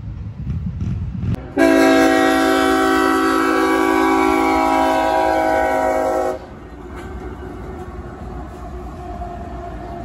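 Diesel locomotive air horn sounding one long, steady, loud blast of about five seconds that cuts off abruptly. Before and after it comes the low rumble of a train rolling by.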